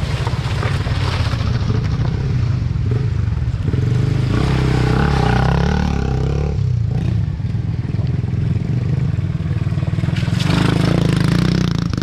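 Small motorcycle engines running and revving as the bikes ride through a shallow rocky stream crossing, over a steady low engine drone. The engine pitch rises and falls about halfway through as a bike passes.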